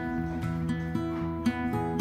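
Background music: an acoustic guitar strumming steady chords.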